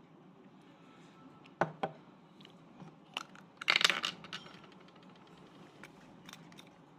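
Small hard objects being handled: two sharp clicks, then a short rattling clatter a little later, followed by a few light taps.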